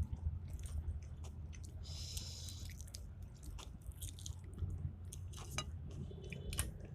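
A person chewing food close to the microphone, with small irregular mouth clicks and wet chewing sounds.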